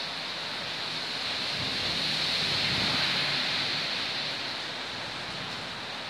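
A steady rushing noise that swells for a couple of seconds in the middle, with a low rumble underneath as it swells.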